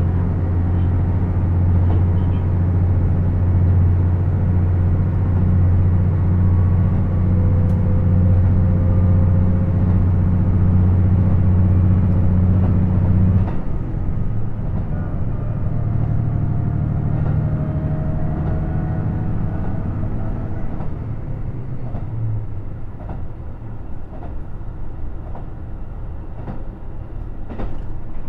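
KiHa 75 diesel railcar heard from inside while running: its Cummins diesel engine drones steadily under power, then shuts off abruptly about halfway through. The train coasts on with quieter wheel and rail noise that slowly fades, with a few light clicks near the end.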